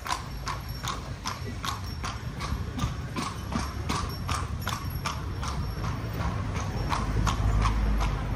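A horse's hooves clip-clopping at a walk on a paved road, an even beat of about three strikes a second, heard from the horse-drawn carriage it pulls. A low rumble underneath grows louder near the end.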